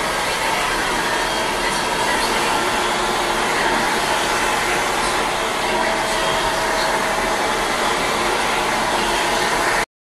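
Handheld blow dryer running steadily, blowing on hair; it cuts off suddenly near the end.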